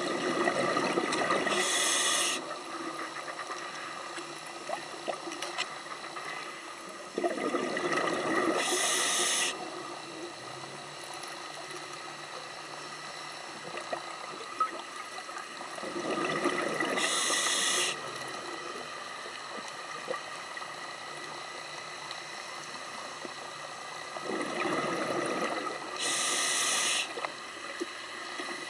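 A scuba diver breathing through a regulator underwater: four slow breaths about eight seconds apart, each a burst of bubbling followed by a hiss.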